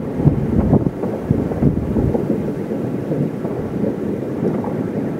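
Distant fireworks going off across a city: a dense, continuous rumble of many overlapping booms.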